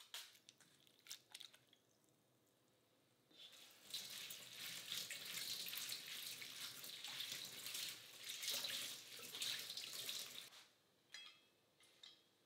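Kitchen tap water running onto salad greens in a stainless mesh strainer in the sink for about seven seconds, cut off suddenly. At the very start, a few quick strokes of a red onion on a handheld slicer, and near the end a few light clicks.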